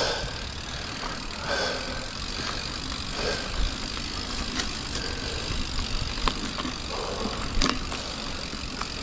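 Mountain bike rolling over a dirt trail: steady tyre and wind noise with a low rumble, and a few sharp clicks and rattles from the bike.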